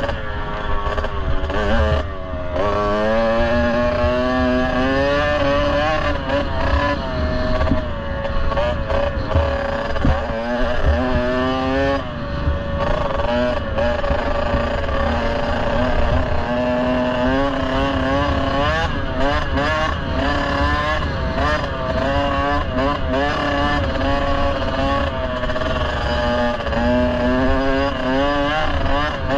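Kawasaki KX65's two-stroke single-cylinder engine running under way on a dirt bike, its pitch climbing and dropping again and again as the throttle opens and closes and the gears change, over a steady low rumble.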